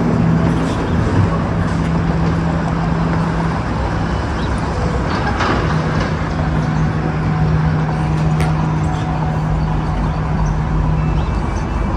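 Steady city traffic noise with a continuous low hum, which drops out for about two seconds near the middle.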